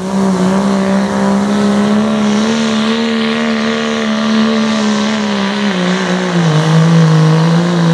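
A Dodge Ram pickup's Cummins turbo-diesel inline-six runs flat out under full load as the truck drags a pulling sled. It holds one steady high engine note, which sags a little in pitch from about six seconds in as the sled bears down harder.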